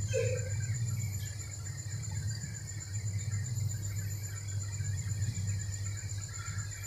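A cricket trilling steadily at a high pitch over a steady low hum, with no other event in the stillness.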